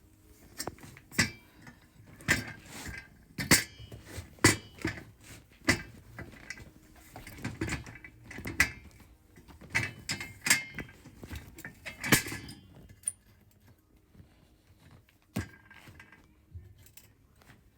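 Metal parts and hardware clinking and knocking as a welded flat-bar frame is handled and fitted onto a tattoo bed: irregular sharp knocks, close together for about the first twelve seconds, then only a few scattered ones.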